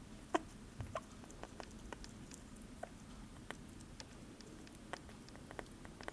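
Sugar glider chewing blueberries: irregular small clicks and smacks, a few a second, the sharpest about half a second in.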